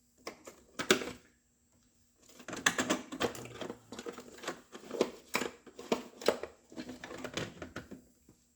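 Wiring harness connectors being worked loose from a car dashboard: a sharp click about a second in, then a dense run of clicks, taps and rattles.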